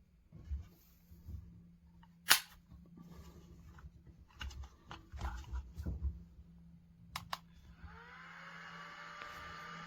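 CAZOKASI portable waist-clip fan being handled, with scattered clicks and knocks and one sharp click about two seconds in. Near the end a couple of clicks switch it on, and the fan motor spins up with a rising whine over a steady whir of air.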